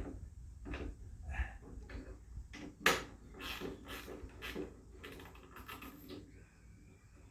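Hand-tool work on an old wagon while working loose a stubborn fastener: a string of irregular clicks and knocks of metal and wood parts, the loudest about three seconds in. A faint high squeak comes in near the end.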